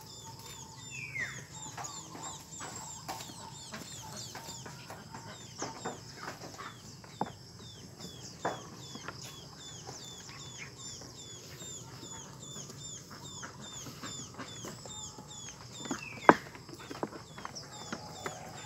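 Chickens clucking over a steady high chirping that repeats several times a second, with a few sharp knocks of goats' hooves on wooden planks; the loudest knock comes near the end.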